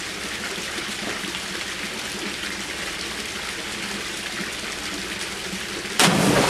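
Two wall spouts pouring steadily into a swimming pool, a constant splashing rush. About six seconds in, a sudden loud splash cuts in: a person plunging into the pool.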